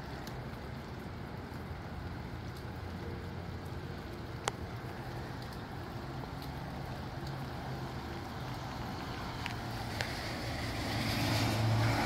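Steady wind and rain, with scattered sharp raindrop ticks and a low hum underneath; the noise swells louder near the end as a gust comes through.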